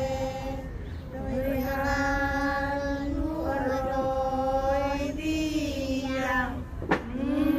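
A young girl chanting a Palauan chesols, in long held notes that slide between a few pitches. A sharp click comes near the end.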